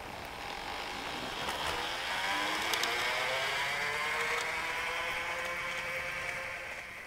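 Garden-scale model diesel locomotive running on outdoor track: a whine that rises in pitch over the first couple of seconds as it speeds up, then holds steady and fades near the end as the locomotive runs off.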